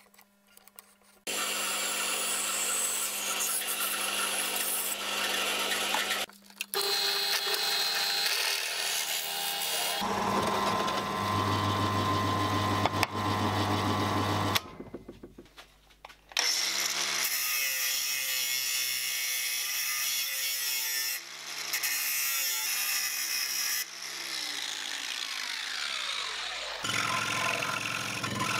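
Shop power tools cutting plywood in a run of short takes, each starting and stopping abruptly: a bench drill press boring wood, and near the end a scroll saw cutting a circle. Partway through, a motor winds down with a falling pitch.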